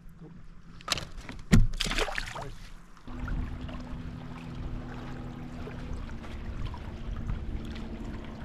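A few sharp knocks and clatters, the loudest about a second and a half in. Then, from about three seconds in, a steady low hum with water lapping against a fishing kayak's hull.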